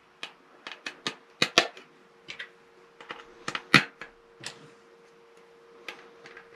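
Small plastic clips being pressed and snapped onto a plastic toothbrush holder panel: a run of sharp, irregular clicks, busiest in the first four and a half seconds, the loudest about four seconds in. A faint steady hum sits behind them.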